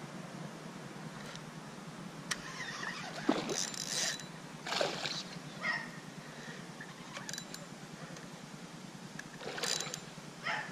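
Steady wind noise, broken by several short splashes and rustles, twice in clusters, as a hooked peacock bass is fought at the water's surface.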